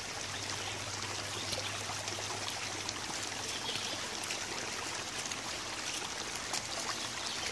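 Small shallow creek flowing steadily over rocks and leaf litter, a continuous trickling rush of water.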